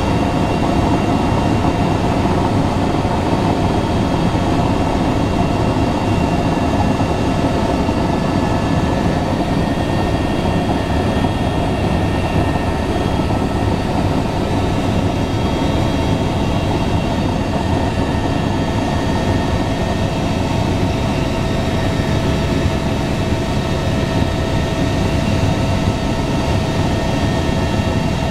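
Helicopter engine and rotor noise heard from inside the cabin in flight: a steady, loud drone with a constant whine over it.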